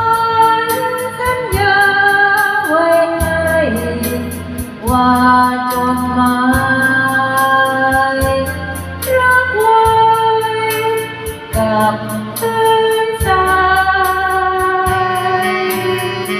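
A woman singing a slow Thai ballad into a microphone, with long held, sliding notes over a karaoke backing track that keeps a steady beat.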